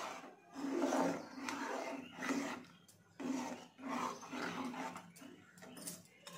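Steel ladle stirring thick taro-root gravy in a metal pot, a run of separate strokes roughly a second apart.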